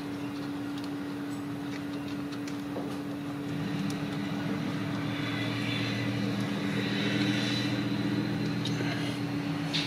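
A steady mechanical hum, joined about three and a half seconds in by an engine drone with a faint high whine that swells and then holds. A few faint clicks are heard.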